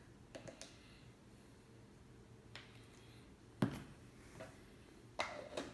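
Plastic supplement tub and scoop being handled: a few faint plastic clicks, then one sharp knock about three and a half seconds in as the tub is set down on the granite countertop, and a short rustle near the end.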